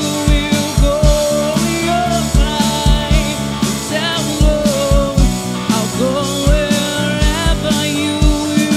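Live rock band playing: a woman singing lead over electric guitar, electric bass and drum kit, with a steady kick-drum beat.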